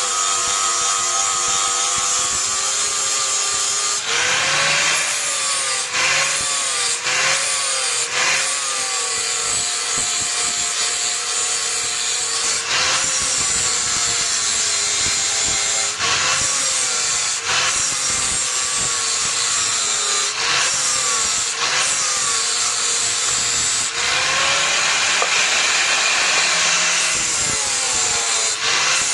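Electric grinder grinding steel in repeated passes. The motor's whine sags as it is pressed into the work and recovers between passes, with short breaks about every four seconds.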